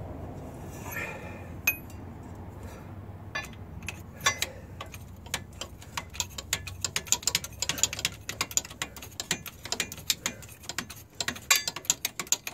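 Many quick, irregular metallic clicks and clinks from a steel ball joint press fixture and bottle-jack frame being worked against a steering knuckle. They start a few seconds in and come thicker from about halfway. A low hum runs underneath in the first half.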